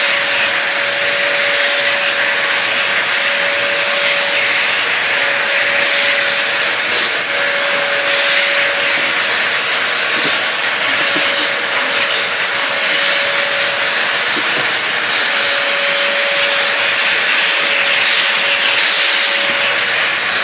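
Vacuum cleaner running steadily through a hose and brush attachment being drawn over a dog's short coat, a constant drone with a steady whine over it.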